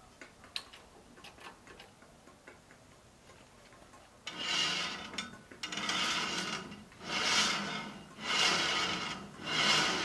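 Homemade band sawmill's saw head worked by hand at its band wheel: a few faint ticks, then, starting about four seconds in, five rasping, rubbing strokes of about a second each, one after another.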